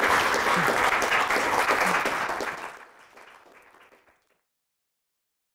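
Audience applauding, a dense clatter of many hands clapping that fades away about three to four seconds in.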